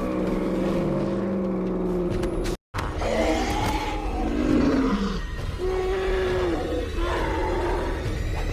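Woolly mammoth sound-effect calls: deep, drawn-out bellows over a low rumble, broken by a brief silence about two and a half seconds in, then several more calls that rise and fall in pitch.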